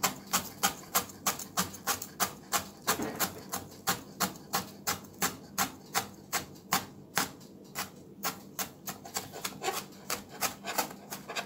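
Chef's knife chopping scallion on a plastic cutting board: a steady run of sharp knocks, about three a second.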